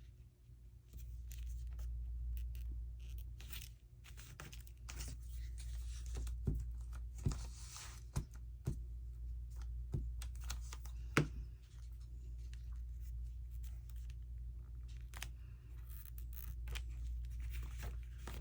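Paper and card being handled and glued down by hand: rustling and rubbing of paper with scattered light taps on the work surface.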